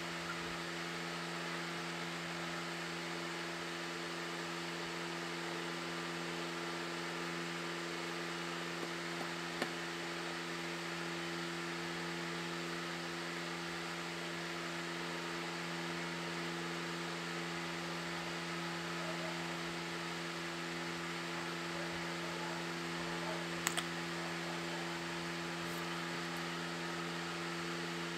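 Steady background hum: several low steady tones over an even hiss, like a fan or small motor running, with a faint click about ten seconds in and another later on.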